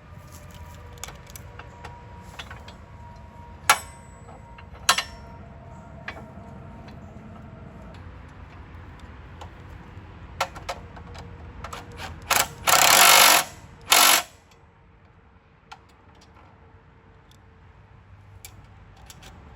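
Hand tools and hardware clinking and knocking on the metal of a chipper shredder during blade work, with a louder noisy burst of about two seconds a little past the middle.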